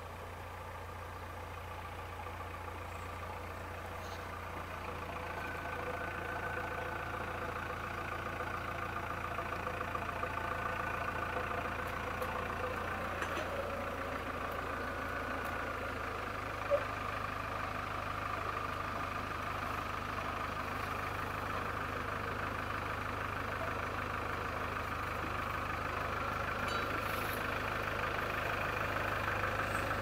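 JCB 3DX backhoe loader's diesel engine running as the machine drives up, getting steadily louder as it approaches. A single sharp click about halfway through.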